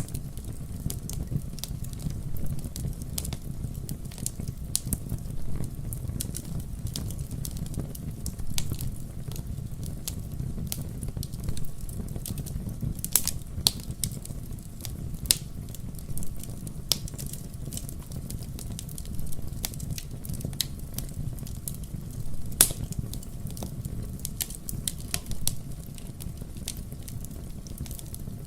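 Wood fire burning in a fireplace: a steady low rumble of flames with frequent sharp crackles and pops from the burning logs, a few louder pops among them.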